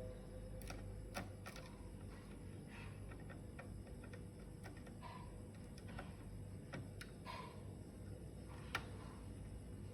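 Scattered light clicks and taps, irregular and unevenly spaced, from small parts and a screwdriver being handled on a laptop's plastic case during reassembly, over a faint low hum.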